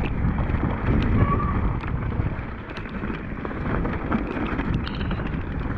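Wind buffeting the microphone over the rumble of mountain-bike tyres rolling on a gravel trail, with scattered clicks and rattles from stones and the bike.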